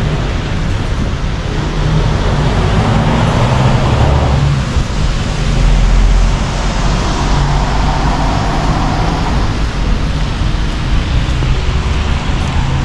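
Road traffic from a busy multi-lane road: a continuous hiss and rumble of passing cars and trucks, swelling louder twice, about four and eight seconds in.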